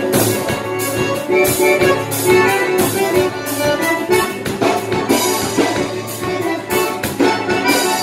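Live band playing an instrumental passage: accordion over strummed acoustic guitar, with a drum kit keeping a steady beat.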